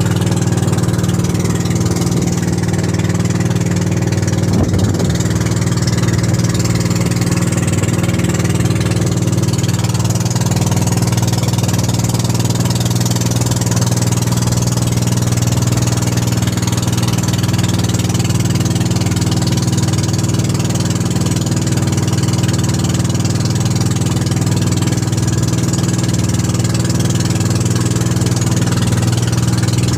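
Engine of a motorized outrigger boat (bangka) running at a steady speed, a loud, even drone with the rush of wind and water over it.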